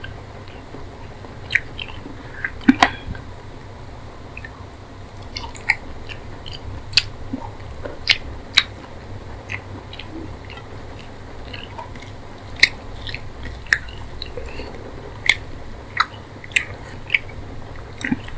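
Close-miked chewing of rice and chicken curry eaten by hand, with about a dozen sharp, wet mouth clicks scattered through it.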